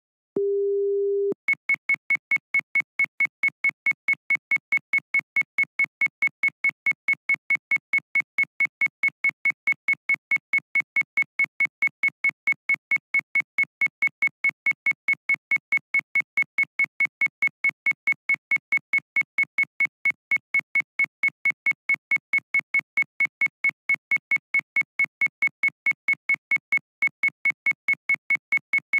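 Seismograph event alarm: a short lower tone, then rapid high-pitched electronic beeping, about three beeps a second, going on without a break. It signals that the station is detecting shaking from an earthquake.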